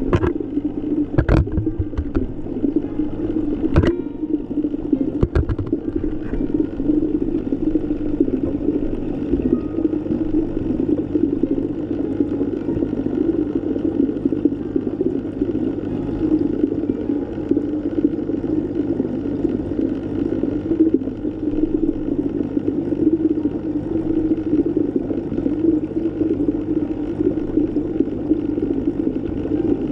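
Underwater ambience: a steady low rush of water noise, with a few sharp clicks in the first six seconds or so.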